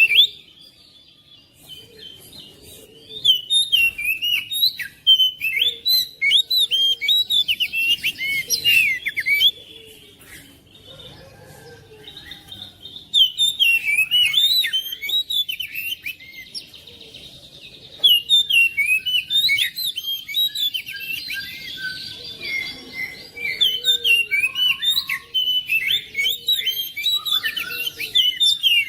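Oriental magpie-robin (kacer) singing: bursts of loud, rapid, varied whistled phrases, with a couple of quieter pauses between them.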